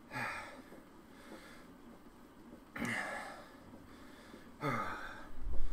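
A man breathing hard while pedalling an exercise bike: three heavy exhales, a second and a half to two seconds apart, each with some voice in it that drops in pitch. A low thump comes near the end.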